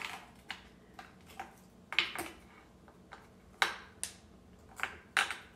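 Frozen ravioli being set down one by one into a glass baking dish: light, irregularly spaced clicks and taps against the glass, about ten over a few seconds.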